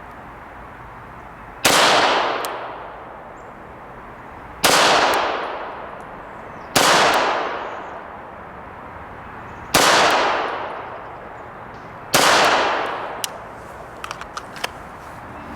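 Five single shots from a Sig Sauer P226 Legion SAO 9mm pistol, fired slowly two to three seconds apart, each trailing off in a long echo. A few faint light clicks follow the last shot.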